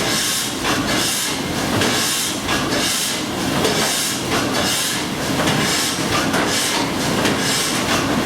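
Steam engine of the paddle steamer Blümlisalp running steadily, a rhythmic hiss of steam about three times every two seconds over a constant mechanical clatter.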